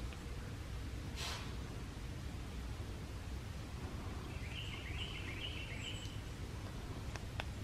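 Quiet woodland ambience: a short burst of rushing air about a second in, then a bird giving a quick run of about five rising chirps in the middle, and two faint clicks near the end.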